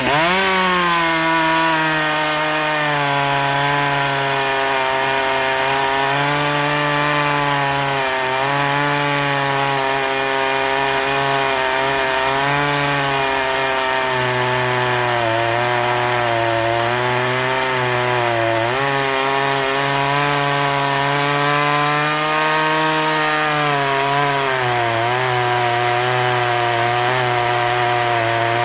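Small Shindaiwa 360 two-stroke chainsaw revved up and cutting through ironbark. The engine pitch sags and recovers as the chain bites, with a deep bog about two-thirds of the way through: the small motor is working hard in the dense hardwood.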